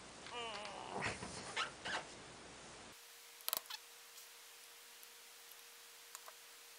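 Awl and screwdriver prying a rubber lip seal out of a tractor power-steering valve: a brief wavering squeal in the first second, then quiet scraping and a few sharp metal clicks.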